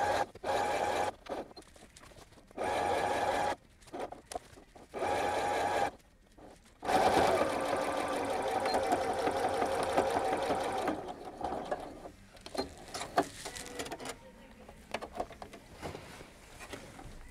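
Janome computerized sewing machine running a straight top-stitch, starting and stopping in short spells, then sewing steadily for about four seconds before stopping. A few light clicks follow as the work is handled.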